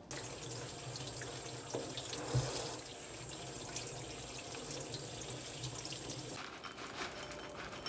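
Kitchen mixer tap running into a sink while a small bowl is rinsed by hand under the stream, with a couple of knocks about two seconds in.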